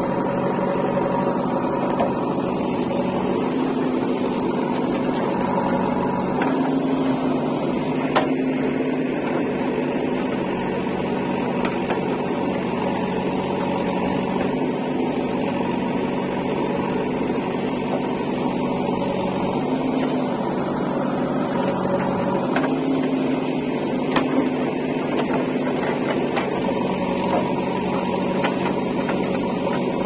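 JCB 3DX backhoe loader's four-cylinder diesel engine running steadily under hydraulic load while the backhoe digs, its pitch shifting slightly now and then. A few sharp knocks come from the bucket working the stony murum soil.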